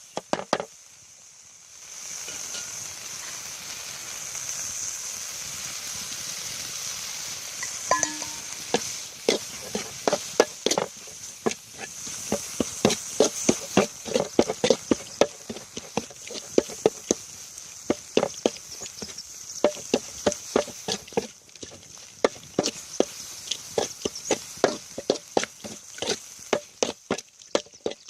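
Kitchen work for field-rat laab: a steady hiss, then from about eight seconds in a long run of knocking strokes, two or three a second.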